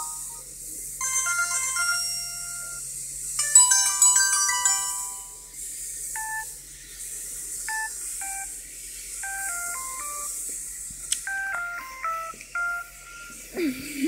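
Samsung SGH-U600 mobile phone playing its built-in ringtones through its small speaker while they are previewed from the ringtone menu: synthesized melodies of short electronic notes. One tune cuts off just after the start and a new one begins about a second in.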